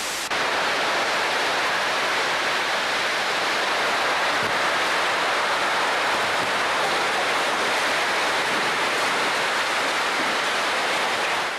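Hurricane-force wind blowing steadily and loudly, a continuous rushing noise with driven rain in it.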